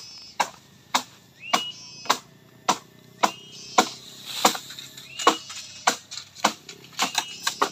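Bamboo being chopped with a blade: sharp strikes about twice a second, each with a short hollow ring.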